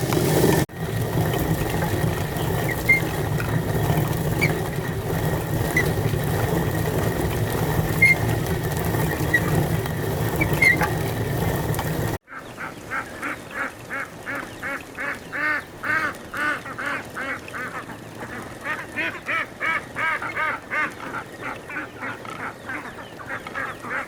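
A steady low noise with a few faint high chirps. After a sudden cut about halfway through, ducks quack in a quick series of short calls, several a second.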